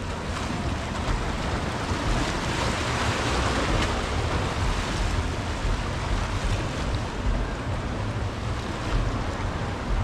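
Ocean surf washing onto a beach, a steady rush that swells about three seconds in, with wind rumbling on the microphone underneath.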